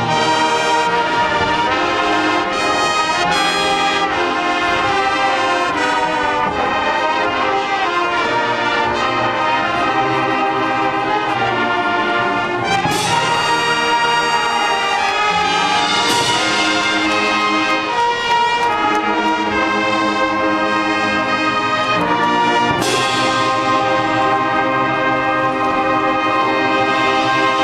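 High school marching band playing its field show live: massed brass holding loud chords over percussion, with sudden accented hits about halfway through and again a few seconds later.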